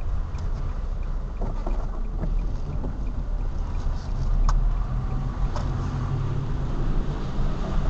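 Car driving slowly on wet streets, heard from a dashcam inside: a steady low engine and road rumble with tyre noise, and a few sharp clicks about halfway through.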